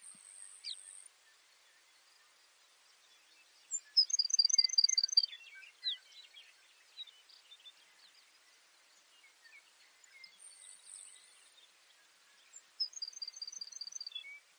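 Baird's sparrow singing twice, each song a quick series of high, evenly repeated notes, about five a second, about four seconds in and again near the end. Faint high buzzes and scattered small chirps lie between the songs.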